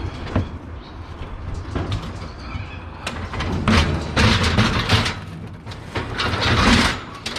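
Loud scraping and rattling of something heavy being shifted or dragged, with a low rumble underneath, coming in several long stretches that are loudest in the second half.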